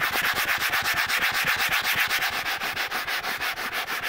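Soft-bristled leather brush scrubbing cleaner into a tan leather car seat in rapid, even back-and-forth strokes, several a second, working a stain out of the leather.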